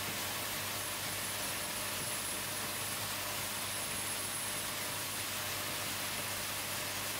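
Steady, even hiss with a low hum underneath and a faint high whine; no distinct machine strokes or clicks.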